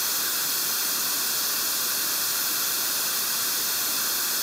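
White noise test signal: a steady, even hiss spread across all audible frequencies, loud enough to read about 90 dBA on a sound level meter.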